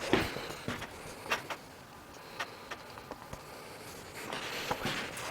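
Light handling noise: scattered small clicks and knocks, with a spell of rustling about four seconds in.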